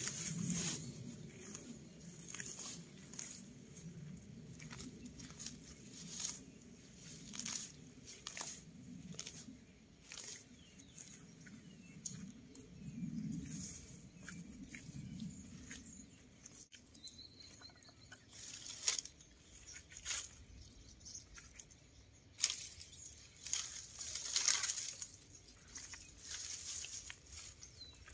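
Dry, dead cucumber vines and twigs rustling, tearing and crackling in irregular bursts as they are pulled up and cleared by hand.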